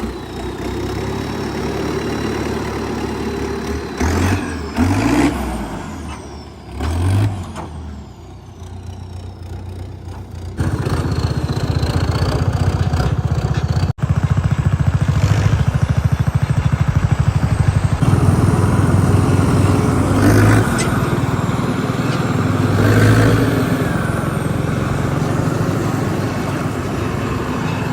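Sonalika RX 60 tractor's diesel engine pulling a hitched trailer: it revs up a few times, then runs steadily under load as the tractor drives along.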